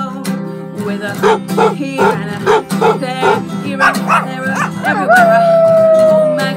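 A woman's voice imitating a dog over a strummed acoustic guitar: a run of short woofs, then one long howl, falling slightly in pitch, near the end.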